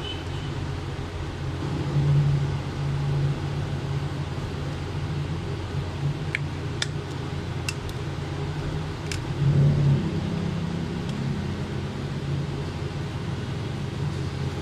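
Plastic housing clips of an itel Power 410 keypad phone clicking four times, about halfway through, as the case is prised apart by hand. A steady low hum runs underneath and swells twice.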